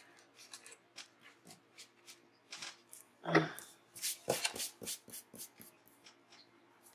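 Planner pages and sticker sheets handled on a desk: a run of short rustles and crisp ticks, busiest in the second half, as stickers are peeled and pressed down.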